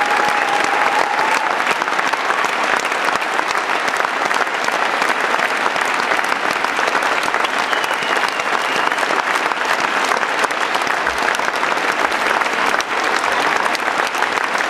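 A large theatre audience giving a long ovation of dense, steady clapping.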